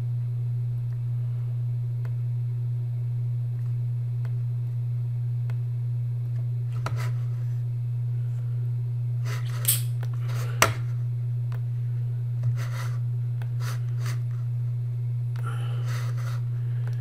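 A steady low electrical hum, with a few short sharp clicks of a computer mouse around the middle.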